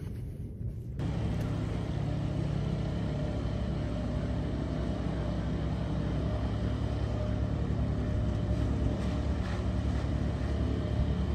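Small motorboat's outboard motor running steadily, a low even hum that sets in about a second in.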